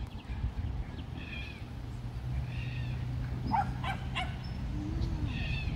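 A dog barking in the distance, three short barks spaced a second or more apart, over a low steady rumble.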